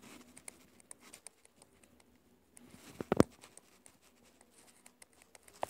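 Stylus tapping and ticking on a tablet touchscreen while handwriting numbers: a scatter of faint irregular clicks, with one louder knock about three seconds in.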